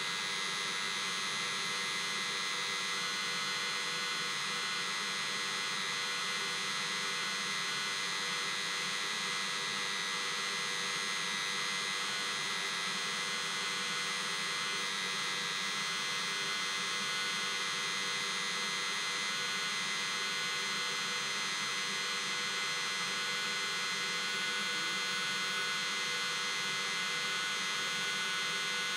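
Mercedes Sprinter's diesel-fired auxiliary block heater still running after being switched off, in its after-run cool-down: a steady whine of its combustion-air blower with several constant tones, no change in pitch or level.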